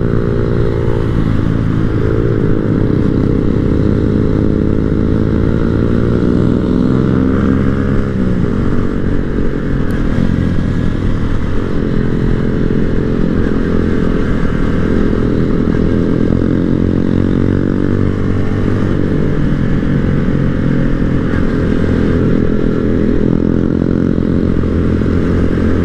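Small-bore motorcycle engine running under way, its note rising and falling with throttle and gear changes; a long climb in pitch ends in a sudden drop about eight seconds in.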